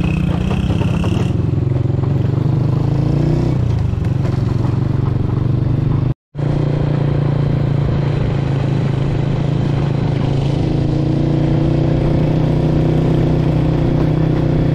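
Motorcycle engine running steadily while being ridden, its pitch shifting a little about three seconds in. The sound cuts out abruptly for a moment about six seconds in, then resumes.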